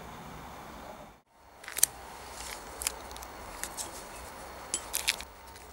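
Paper masking tape being handled and wrapped around a threaded part, giving a string of short, sharp crackles and clicks. Before that, a steady background hiss cuts out about a second in.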